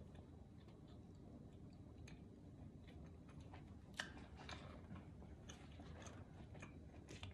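Faint, quiet chewing of pizza, with scattered small mouth clicks and one sharper click about four seconds in.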